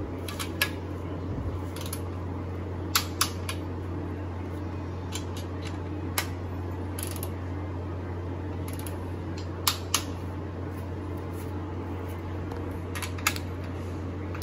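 Sharp clicks of a click-type torque wrench breaking over as the LS7's main cap bolts reach their set torque, mostly in close pairs a few seconds apart, over a steady low hum.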